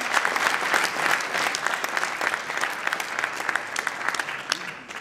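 Audience and teammates applauding, a dense run of hand claps that dies away near the end.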